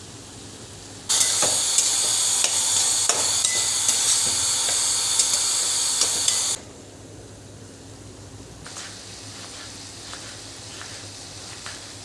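Food frying in a pan, a loud sizzle with a spoon stirring and tapping against the pan, starting suddenly about a second in and cutting off after about five seconds. Near the end, a fainter sizzle with occasional light taps.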